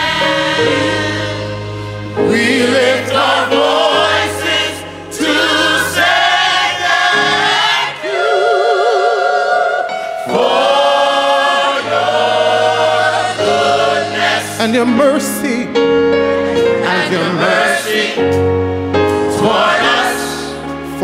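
Gospel choir singing in phrases, many voices together with vibrato, over a live band's low sustained bass notes.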